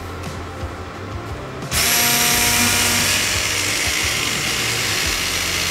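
Hand-held stick blender switched on just under two seconds in, then running steadily as its blade churns a pot of liquid sauce.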